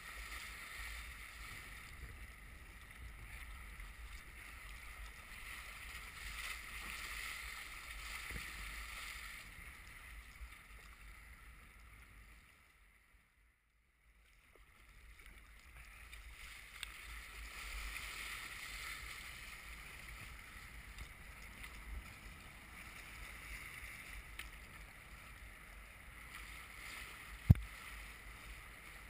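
Choppy water sloshing and splashing against a sea kayak's hull under paddle strokes, with wind rumbling on the microphone. The sound drops away almost to nothing for about a second midway, and a single sharp knock near the end is the loudest moment.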